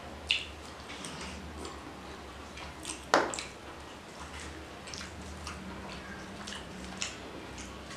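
A person eating rice and mutton curry by hand: wet mouth clicks and smacks while chewing, with fingers squishing and mixing rice in a steel plate. One sharper smack about three seconds in stands out, over a faint steady low hum.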